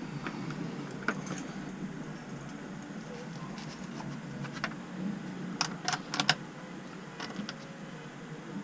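Small clicks and taps of multimeter probes being handled and touched to LiFePO4 battery cell terminals while cell voltages are checked. The clicks are scattered, with a quick cluster of about four sharper clicks a little past halfway, over a steady low hum.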